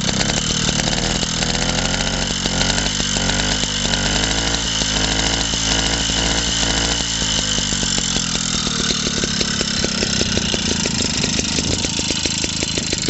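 Small JAP Model 80 stationary engine running steadily, its rapid, even firing beats continuing throughout. It sits unbolted on a board and is moving about as it runs.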